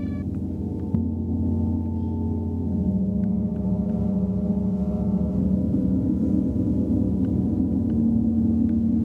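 Large hanging gongs played with soft round mallets: a deep, continuous swelling wash of sound. A fresh strike comes about a second in, and the low rumble thickens and grows a little louder over the following seconds.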